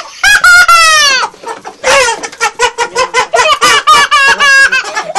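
Chicken squawking in one loud falling call, then cackling in a fast run of short notes, about five or six a second.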